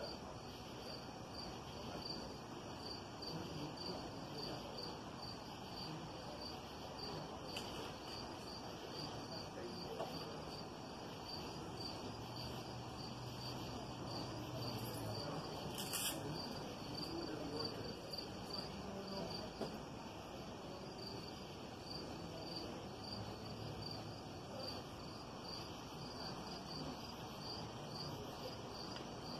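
Crickets chirping in a steady, evenly repeating pulse on a quiet summer night, with a faint low hum now and then and a single short click about halfway through.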